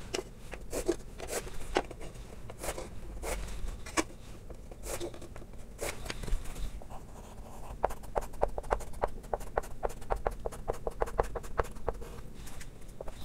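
Chalk tapping and scraping on a blackboard as block letters are written, scattered strokes at first, then a quick, dense run of strokes in the second half.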